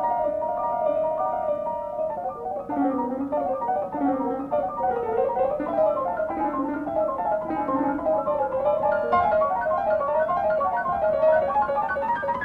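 Background music led by piano: a held chord, then a quick running melody over lower notes that return about once a second.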